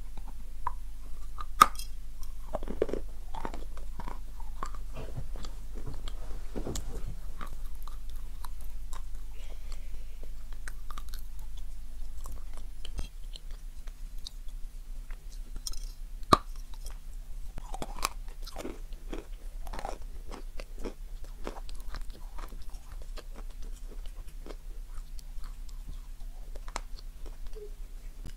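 Close-miked biting and chewing of a crunchy crumb-coated marshmallow dessert shaped like a chicken drumstick. There are two sharp crunchy bites, about a second and a half in and again about sixteen seconds in, each followed by a few seconds of crackly chewing. A steady low hum runs underneath.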